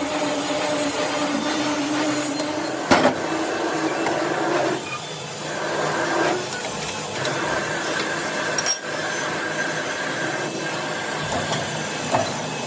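Metal-working lathe running while a drill bit in a tailstock chuck cuts into the end of a steel screw-compressor rotor shaft: a steady mechanical whir with a scraping, rasping cutting noise, broken by two sharp clanks a few seconds apart.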